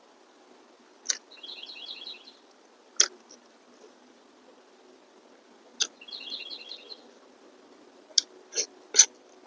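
Close sharp lip smacks and mouth clicks of someone eating with their fingers and chewing, the loudest ones near the end. Between them a songbird gives a quick high trill of about eight notes, twice: about a second in and again past the middle.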